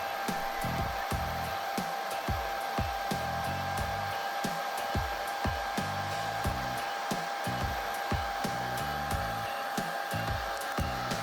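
Hair dryer running steadily: an even hiss of blowing air with a constant motor whine. Background music with a steady beat plays underneath.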